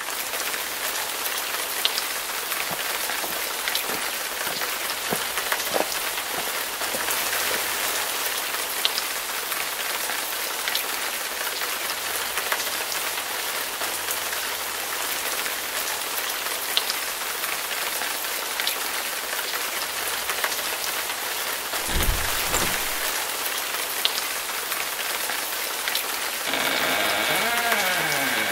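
Steady rain falling, a constant hiss dotted with the ticks of single drops. About two-thirds of the way through there is a low thud, and near the end a creak that falls in pitch as a door is opened.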